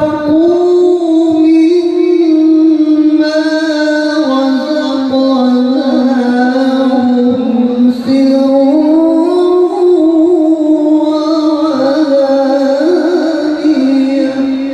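A male Quran reciter's voice in a long melismatic passage of tilawah, drawn-out ornamented notes with the pitch winding slowly up and down, amplified through a PA system.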